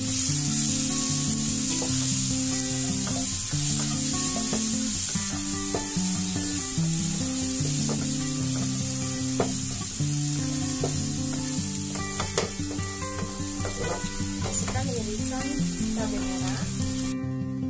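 Ground shallot and garlic paste sizzling in hot oil in a wok while a plastic spatula stirs and scrapes it, with scattered clicks of the spatula on the pan. The sizzle cuts off abruptly just before the end.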